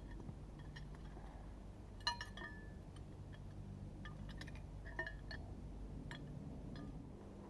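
A series of light clinks with a brief ring, the loudest about two seconds in and another about five seconds in, over a faint low steady hum.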